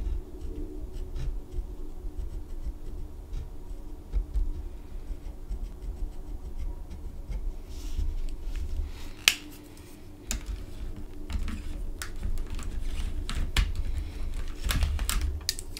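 Pen tip scratching a small colour swatch on paper, then the pen's plastic cap and barrel being handled and put back on, a run of sharp plastic clicks and taps that is busiest in the second half, over a low handling rumble.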